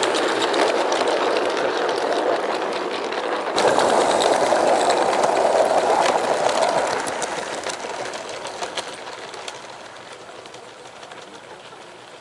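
16mm-scale live-steam locomotive chuffing rapidly as it hauls a train of coaches. The sound jumps up about three and a half seconds in, then fades steadily as the train runs away.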